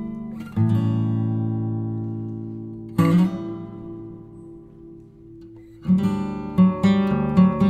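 Background music of acoustic guitar: strummed chords that ring out and fade, then quicker rhythmic strumming starting about six seconds in.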